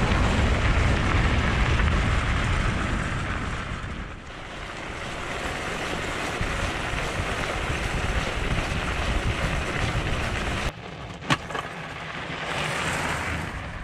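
Wind buffeting the camera microphone as a fat bike rides across open lake ice, a low rushing noise that drops and shifts at edits, with one sharp click a little past the middle.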